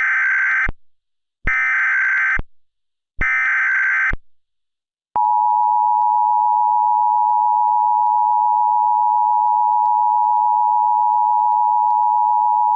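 Emergency Alert System header: three short bursts of buzzing SAME data tones, then from about five seconds in the steady two-tone EAS attention signal, which announces an emergency alert message.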